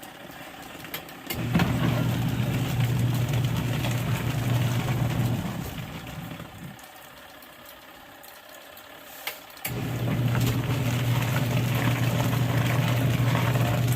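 Small portable washing machine's agitator motor humming steadily while it churns soapy water, running in two spells of about five seconds each with a pause of about three seconds between, as the agitator stops and starts.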